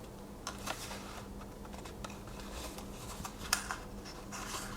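A small cardboard knife box being opened and its paper packaging handled by hand: scattered light clicks and rustles, a few sharper ones about three and a half seconds in.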